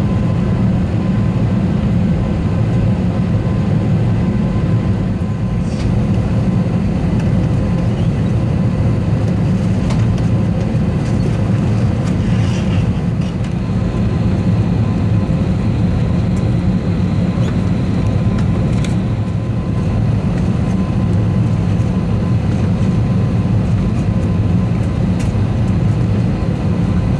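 Steady low cabin hum of an Airbus A320neo on the ground during pushback, with a thin steady whistle-like tone over it and a few faint ticks.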